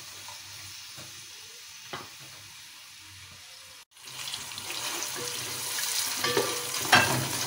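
Sliced onions sizzling in hot oil in an aluminium pot, stirred with a wooden spatula. The sizzle is faint at first and louder after a brief drop-out about four seconds in, with a few sharp knocks of the spatula against the pot.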